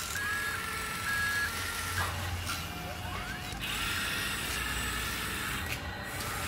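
The small electric motors and gears of a toy radio-controlled excavator whine as the boom and arm move. The whine steps between two pitches, then rises once in pitch about halfway through before settling into a steady tone.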